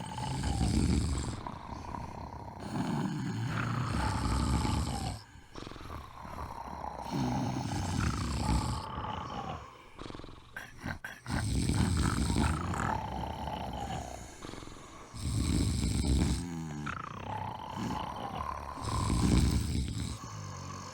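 Snoring: about six loud rasping snores, one every three to four seconds, each with a thin whistling tone that falls in pitch.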